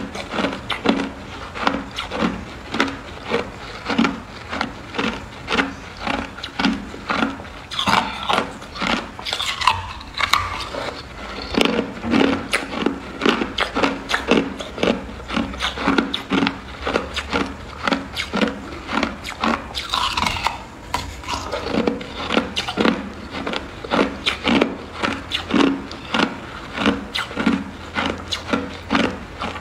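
Hard clear ice being chewed: crunching in a steady rhythm of about two crunches a second, with a few brief squeaks.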